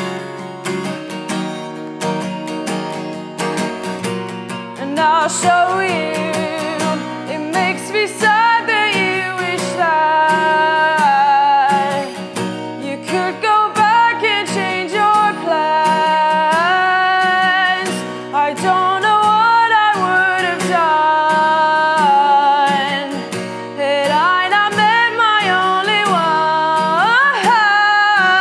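Live solo song: a guitar strummed and picked steadily, with a woman singing long held notes and sliding between pitches over it from about five seconds in.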